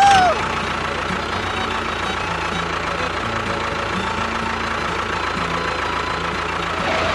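An engine running steadily at idle, with faint music underneath.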